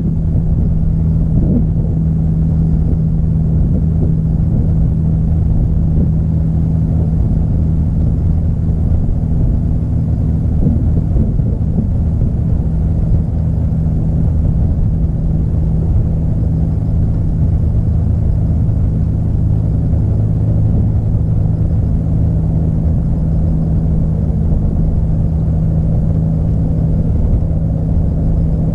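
A steady, loud low engine drone with one constant hum pitch and a rumble beneath it.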